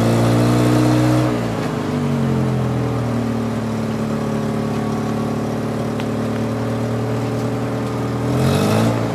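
A heavy vehicle's engine running at raised speed, dropping back about a second in and holding steady, then revving up briefly and settling again near the end.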